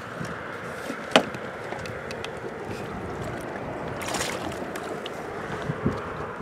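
Small fishing boat on the water: steady water noise around the hull, a sharp knock about a second in and a short noisy burst around four seconds in.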